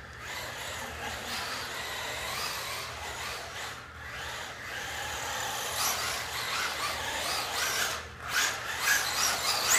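Traxxas Rustler VXL RC truck's brushless electric motor whining with tyre noise as it drives across a hard tile floor, louder with quick surges in the last couple of seconds as it comes close.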